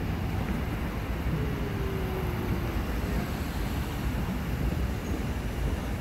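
Steady traffic noise from a line of cars driving slowly past, engines and tyres, with a faint falling whine about a second and a half in.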